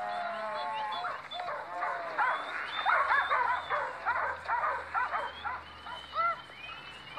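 Dog barking and yelping, quick barks coming thick and fast, busiest about three seconds in and thinning near the end.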